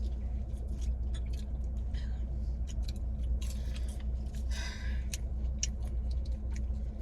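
A person chewing a mouthful of burger, with short wet mouth clicks and smacks, over the steady low hum of a car.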